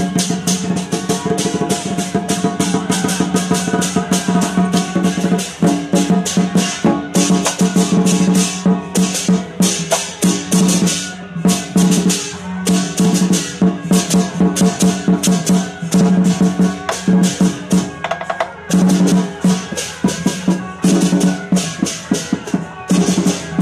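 Lion-dance percussion band playing: barrel drums beaten with fast, steady clashes of cymbals, over a low ringing tone that drops out now and then.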